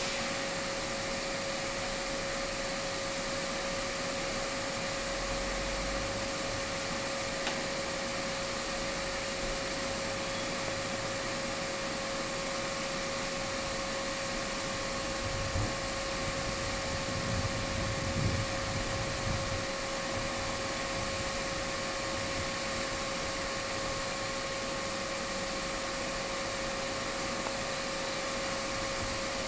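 Diesel locomotives standing at idle, giving a steady mechanical hum with a constant whine over it. A low engine rumble swells briefly a little past halfway.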